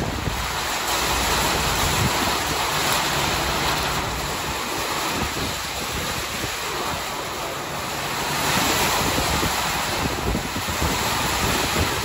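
Strong monsoon thunderstorm wind gusting with wind-driven heavy rain, swelling and easing in waves, with wind rumbling on the microphone.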